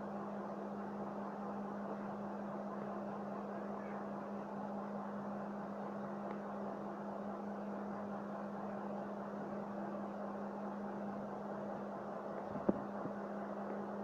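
A steady low hum with an even rushing noise, like a running motor or fan, and a single sharp knock near the end.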